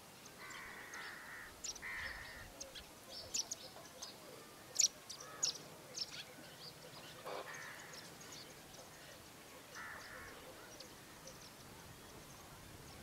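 Wild birds calling: many short, high chirps scattered throughout, loudest about five seconds in, with a few longer, lower, noisier calls near the start and again at about seven and ten seconds.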